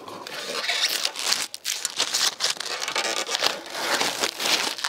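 Blue plastic protective film being peeled off a stainless steel patio-heater reflector panel, crackling and tearing unevenly. The film is tearing into pieces instead of coming away whole, because it was laid on before the edge was crimped.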